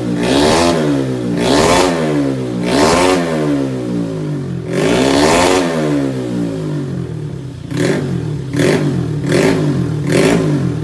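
Yamaha Mio scooter's single-cylinder four-stroke engine, bored up to 155cc, being revved in repeated throttle blips, each rising and falling in pitch. Four long revs come first, then four short, sharp blips near the end.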